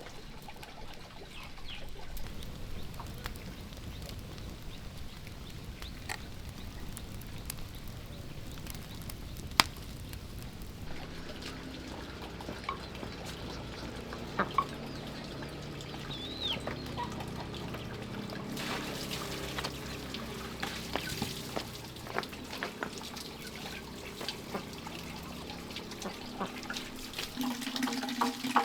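Water pouring and sloshing as fish are washed in a basin, with scattered sharp clicks and knocks.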